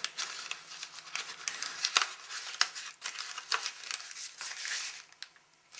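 Crinkling and rustling of MRE packaging being handled, with a string of sharp clicks and crackles, dying away near the end.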